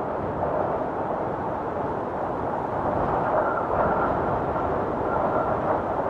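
Blizzard wind blowing hard and steadily, a deep rushing noise with a faint high whistle that comes and goes from about halfway through.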